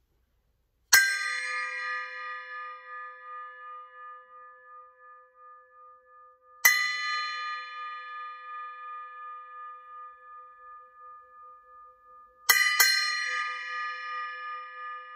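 Sabian Radia 7-inch bell cymbal struck with a drumstick three times about six seconds apart, the last a quick double hit. Each strike gives a bright ring of several high tones that fades slowly with a wavering shimmer.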